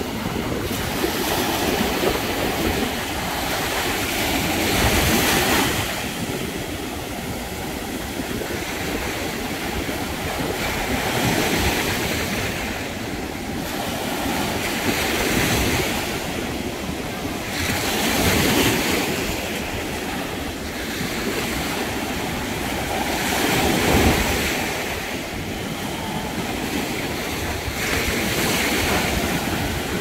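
Ocean surf breaking and washing up a sandy beach, the wash swelling and easing every few seconds.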